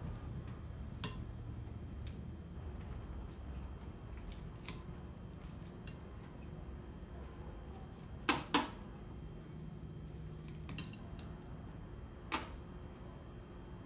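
Metal serving spoon clinking against a glass bowl and china plates while potato salad is scooped and served: a few scattered light clinks, with two louder ones close together about eight seconds in and another near the end.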